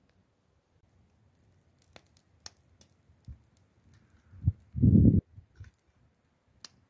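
Scattered light clicks and taps from hands handling food and dishes, with a short, loud, low thump about five seconds in.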